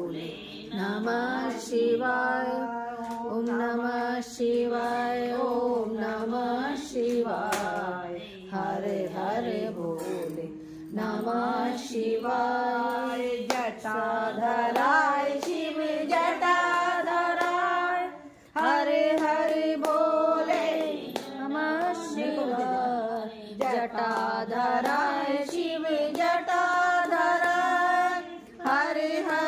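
Women singing a Hindu devotional bhajan to Shiva, with hand clapping along.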